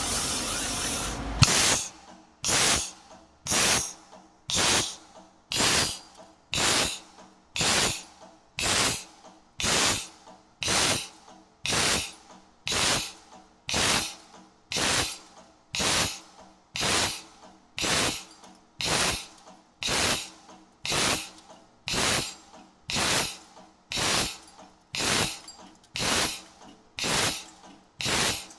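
CNC hydraulic box-section punching machine cycling automatically, punching square holes in a metal tube. Each stroke gives a short hiss, about one a second in an even rhythm, after a steady hiss and a sharp click at the start.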